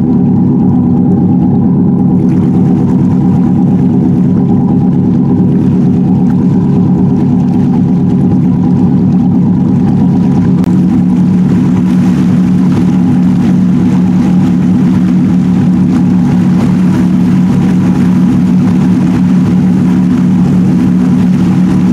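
Motorboat engine running at a steady speed close by, a constant low hum with a rapid even pulse. A broader rushing noise joins about two seconds in.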